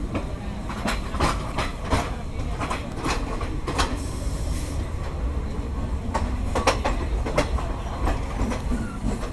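Passenger train running along the track: a steady low rumble with irregular sharp clacks of the wheels over the rails.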